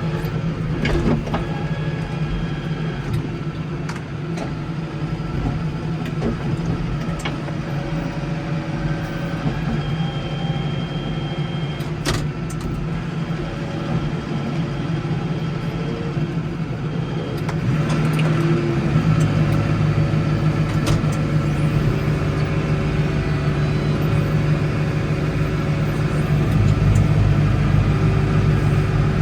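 Case 115U tractor's engine running steadily, with a few sharp knocks. About 18 seconds in it gets louder and heavier, and again near the end.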